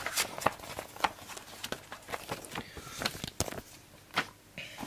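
Paper target sheets and card being handled and set down on a table: an irregular string of light taps, clicks and paper rustles.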